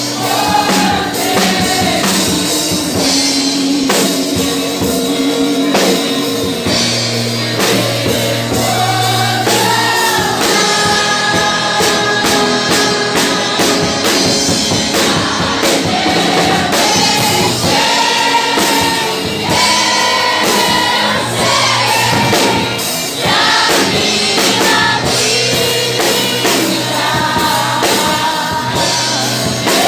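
Gospel song with a group of voices singing in harmony over a band with a steady drum beat and bass.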